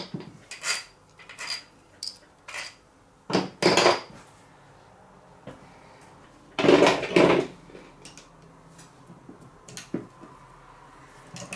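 Steel hand tools and parts clinking and clanking on a workbench: a string of sharp knocks in the first four seconds, a louder clatter about seven seconds in, then only a few small light taps.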